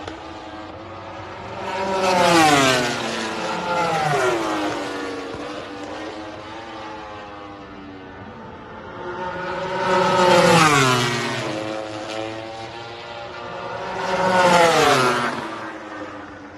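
Racing motorcycles passing one at a time along the track, four pass-bys. Each engine note rises in loudness and drops in pitch as the bike goes by.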